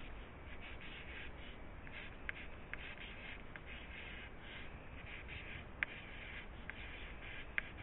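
Pencil scratching on paper in short, faint strokes as words are written by hand, with a few light ticks of the pencil on the page.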